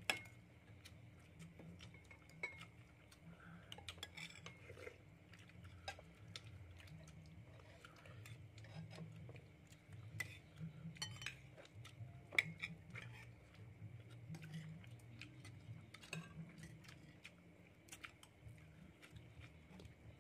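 Metal spoons clinking against ceramic plates and bowls as scattered light clicks, with one louder clink about twelve seconds in, over a faint steady low hum.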